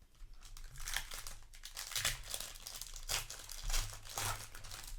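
Booster pack foil wrapper crinkling and tearing in a series of rustling bursts as the pack is handled and torn open.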